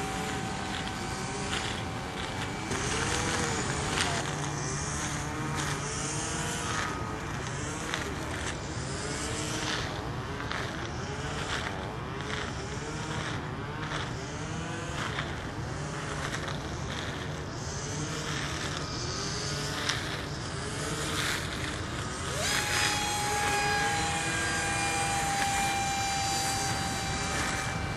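Radio-controlled model airplane motors whining in flight, their pitch repeatedly rising and falling. Near the end a new steady, higher whine slides up and holds.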